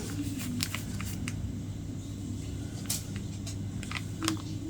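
Steady low background hum with a handful of faint, scattered clicks and rustles from handling latch-hook yarn packs while checking their colour numbers.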